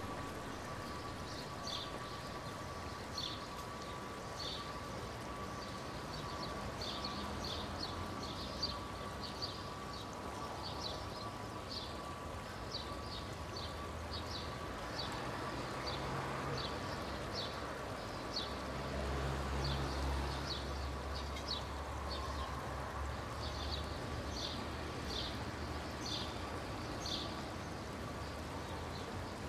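Street traffic ambience: a vehicle passes close with a low rumble about halfway through, under a faint steady hum and short high chirps repeating several times a second.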